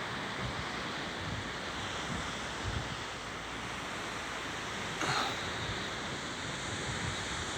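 Caspian Sea waves washing on the shore, with wind buffeting the microphone in low gusts. A brief louder rush of water comes about five seconds in.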